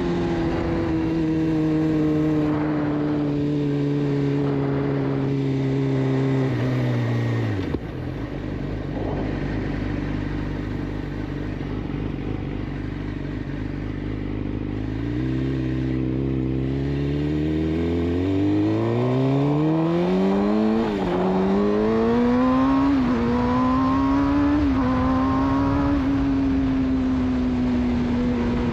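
Suzuki GSX-R600 inline-four running through a de-catted Yoshimura exhaust. The engine note eases down, drops sharply about a quarter of the way in to a low, steady note for several seconds. It then accelerates hard through the gears, the pitch climbing and dipping at each of about four upshifts before settling to a steady cruise near the end.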